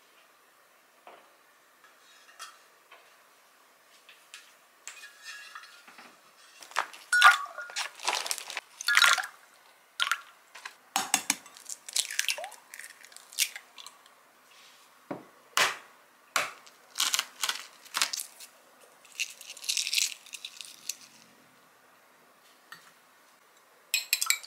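Kitchen handling sounds: scattered knocks and clinks of dishes and utensils, with eggs being cracked against a glass measuring cup partway through. Near the end, a small wire whisk starts beating eggs in the glass cup in rapid strokes.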